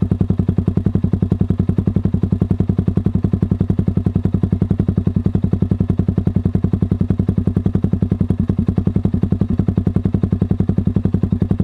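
Single-cylinder Z200S motorcycle idling steadily through an Akrapovic Evo GP exhaust with its silencer still fitted, an even rapid put-put of about nine exhaust pulses a second.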